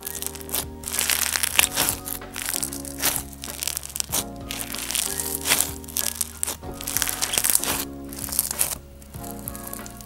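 Crunchy slime packed with bingsu beads being squeezed and pulled by hand, giving a run of irregular sharp crunches about once a second, over background music.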